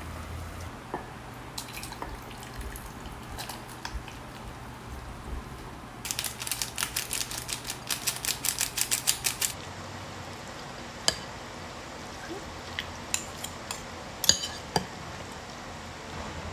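Cutlery clinking and scraping against a bowl of wet noodles, with scattered sharp clicks and a fast run of clicks about six seconds in, lasting about three seconds.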